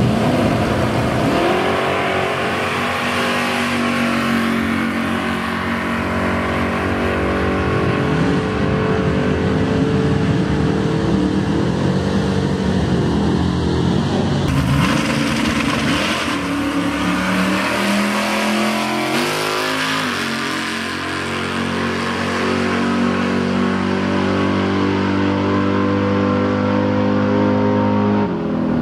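Drag race car engines running steadily and revving at a drag strip, with the pitch rising shortly after the start and again about two-thirds of the way through.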